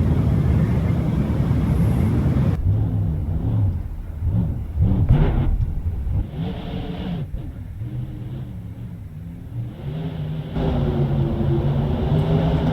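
Car engine running with a low rumble, its pitch rising and falling as it revs up and eases off, then holding steadier and louder near the end.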